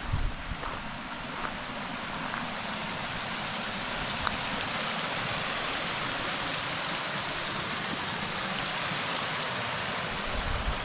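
A creek with a small waterfall rushing steadily, growing louder over the first few seconds, with a few low bumps at the start.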